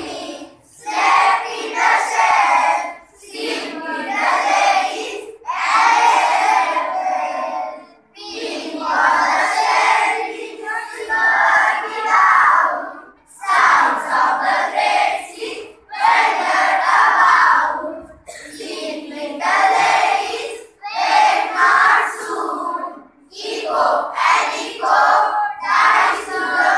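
A class of children chanting an English poem in unison, in short phrases of about two seconds each with brief pauses between.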